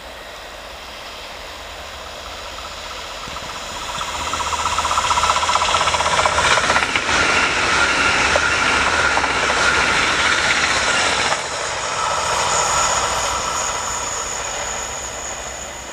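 Multi-car electric passenger train passing at speed: the rush of wheels on rail builds from about three seconds in, stays loud with a steady whine for about seven seconds, drops suddenly as the last car goes by, then fades as the train moves away.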